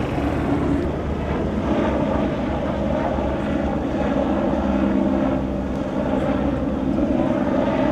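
Steady engine drone, even and unbroken, with a low hum.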